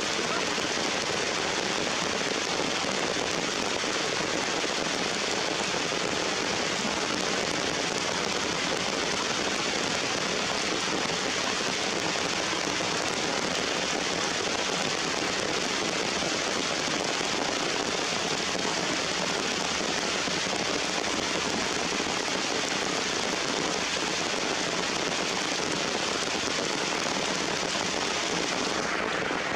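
Heavy rain falling steadily on rocks and leaves, an even hiss that holds at the same level throughout.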